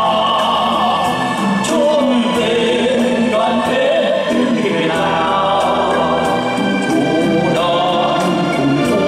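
A man singing a Vietnamese song solo into a microphone over amplified backing music with a steady beat.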